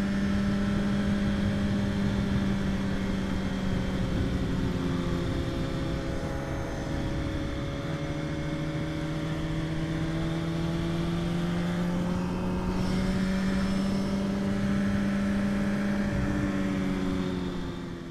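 Sport bike's engine running at a steady cruise under a low rush of wind, its pitch dipping slightly about eight seconds in and rising again near the end.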